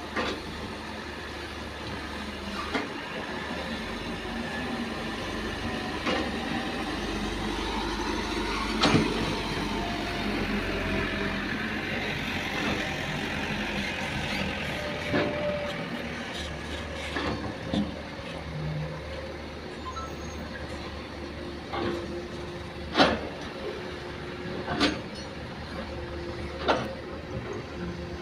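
Hitachi hydraulic excavator's diesel engine running steadily under load as it digs into a soil bank, with sharp knocks and clanks now and then, the loudest about two-thirds of the way through.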